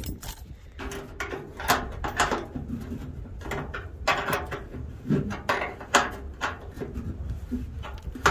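Irregular metallic clicks and scrapes of a bolt being fitted by hand through a rusty steel fender into the body of a 1935 Pontiac coupe, over a low rumble.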